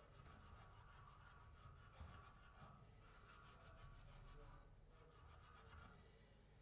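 Quiet, rapid back-and-forth abrasive rubbing by hand on a part, in three runs separated by brief pauses.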